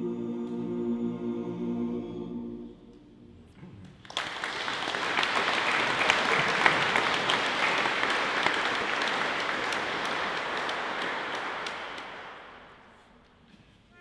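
Male barbershop chorus singing a cappella, holding a steady final chord that stops about three seconds in. About a second later the audience breaks into applause, which is the loudest sound here and lasts about eight seconds before fading out near the end.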